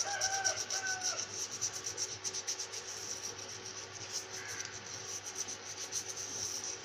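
A brush scrubbing a wet gas-stove burner cap in quick back-and-forth strokes, a steady rasping rub. The grime has been loosened by an overnight vinegar soak and is being scrubbed off.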